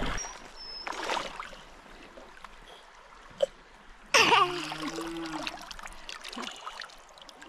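Shallow creek water trickling, with a splash about a second in. About four seconds in, a person's drawn-out wordless exclamation that bends in pitch.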